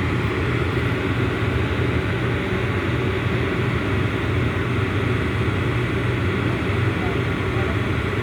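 Crane engine running steadily under load with a low, even drone.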